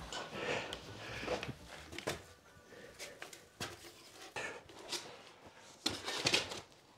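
Scattered clicks and knocks from handling a Bosch cordless drill whose battery has run flat, so the motor does not run; a small cluster of handling sounds comes near the end.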